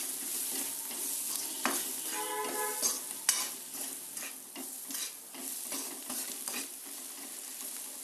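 Sliced onions and powdered spices sizzling in hot oil in a kadai, with a metal spatula scraping and knocking against the pan as they are stirred together.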